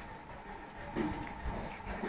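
Spitz puppies giving a few short, faint whimpers.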